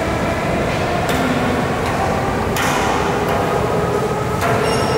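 Subway train running in the station, a steady rumble with a faint whine. A few sharp knocks cut through it.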